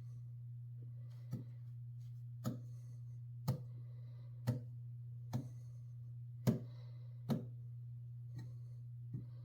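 A steady low electrical hum with sharp light clicks about once a second.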